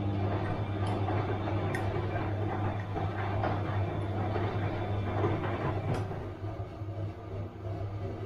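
Bosch washing machine running: a steady low hum with an uneven rushing, churning noise over it that eases slightly about six seconds in, with a few faint ticks.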